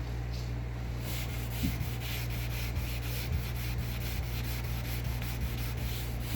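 Car paint being wet-sanded by hand with 400-grit wet sandpaper: quick, even back-and-forth rubbing strokes that start about a second in, over a steady low hum.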